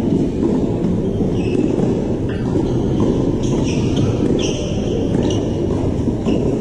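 Tennis on a court: many short, high squeaks of players' shoes and a few sharp knocks of the ball, over a steady loud low background rumble.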